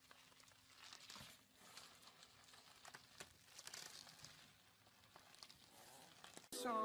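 Faint crinkling and rustling of plastic bubble wrap as a chihuahua wriggles inside a tube of it, with scattered small crackles.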